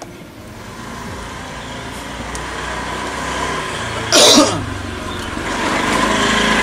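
A man coughs once, sharply, about four seconds in, over the sound of a motor vehicle's engine that grows steadily louder throughout.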